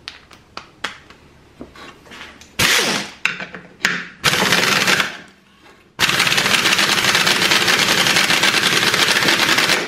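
SP Air SP-7730 3/8-inch air ratchet turning a lag screw in a wooden board. A few sharp clicks come first, then two short bursts, then one long run of about four seconds near the end.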